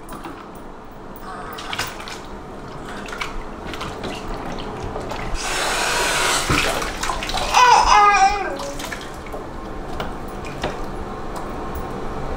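Bath water sloshing and splashing as a baby is washed with a washcloth in a bathtub, swelling to a louder splash a little past halfway. A baby babbles briefly soon after.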